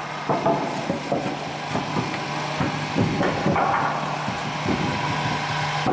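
Irregular knocks and clanks from workshop work on the tank, over a steady low hum.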